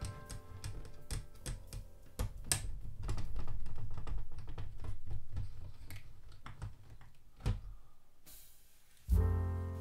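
Irregular small clicks and taps of plastic and metal parts as a CD drive's loader mechanism and its pickup sled are handled and worked with a screwdriver, several a second and busiest in the middle.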